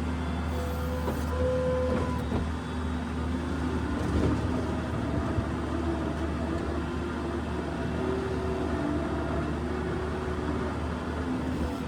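New Holland skid steer engine running steadily, a low drone with faint whines above it that shift in pitch.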